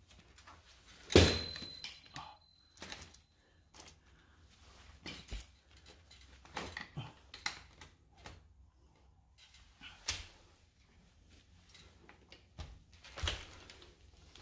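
Scattered clicks and knocks of hands and tools working on a minivelo bicycle during reassembly, with one sharp metallic clank about a second in that leaves a thin ring for a couple of seconds.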